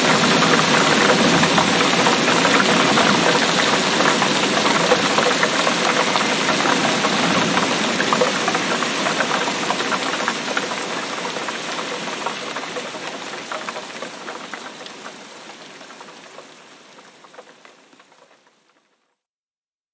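Heavy rain falling, a dense patter of many drops on a hard surface, fading out gradually over the second half to silence shortly before the end.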